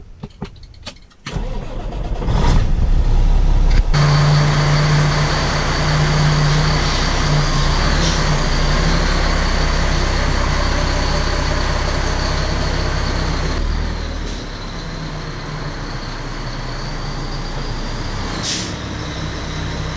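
A Ford dump truck's engine starting: a few seconds of cranking, then it catches and runs steadily with a deep hum and a faint high whine. It gets quieter about two-thirds of the way through as the truck pulls away.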